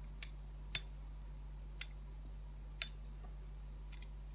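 A handful of faint, sharp ticks at uneven intervals from a steel pizza-cutter wheel being run through a sheet of dough on a worktop, over a steady low electrical hum.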